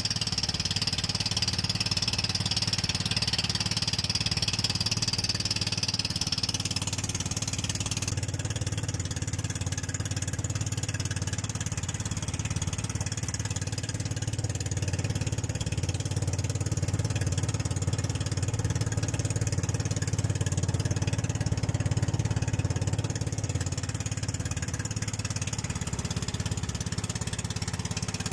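Engine of a motorized bangka (outrigger boat) running steadily at cruising speed, a continuous low drone. A higher hiss above it drops away about seven seconds in.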